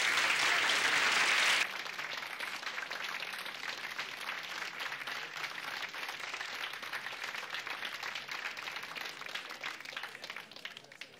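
Audience applauding, loudest for about the first second and a half, then dropping to a quieter level and slowly fading out near the end.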